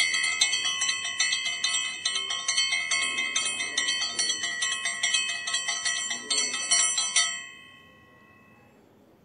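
Hand-held puja bell rung rapidly and steadily, several strikes a second, then stopped about seven seconds in, its ring dying away over the next second.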